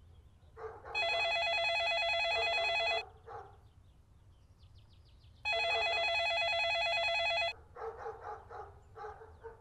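Telephone ringing with a trilling bell tone: two rings, each about two seconds long, with a gap of about two and a half seconds between them.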